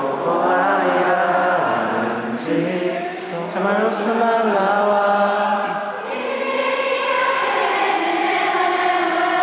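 A huge arena crowd of fans singing a Korean pop ballad together in unison, the melody carried by thousands of voices.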